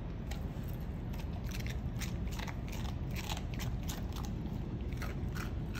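Golden retriever puppy crunching and chewing pieces of raw vegetable, a quick, irregular run of crisp crunches.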